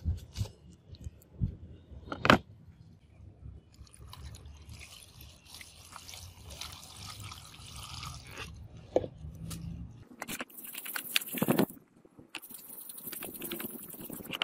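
A few knocks in the first couple of seconds, the loudest about two seconds in. Then a stream of water pours and splashes over the acid-treated iron hatchet head lying in a shallow plastic tray, rinsing it. The water gets louder and hissier about ten seconds in.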